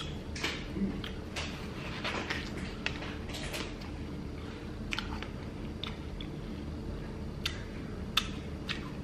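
A person biting into and chewing watermelon: short, irregular clicks and crunches of the mouth at work.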